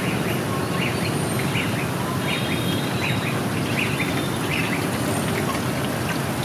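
Steady street noise from dense motorbike traffic, with a short high chirp repeating about every half second to second.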